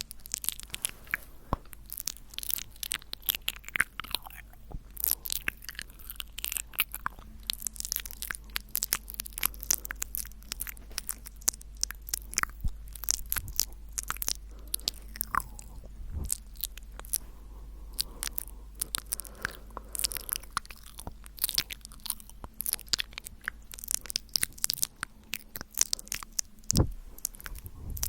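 Close-miked ASMR mouth sounds: a rapid, irregular stream of wet clicks, smacks and pops from lips and tongue, recorded on a Tascam recorder.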